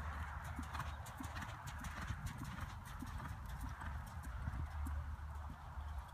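Hoofbeats of a ridden horse loping on the soft dirt footing of an arena, a steady uneven run of footfalls.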